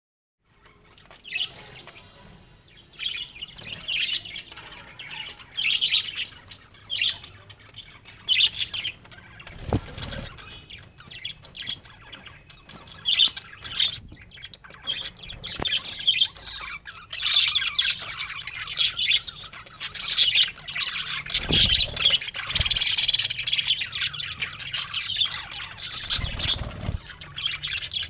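Budgerigars chirping in an aviary: short single calls about once a second at first, building into a busy, near-continuous warbling chatter in the second half. A few brief low thumps are heard in between.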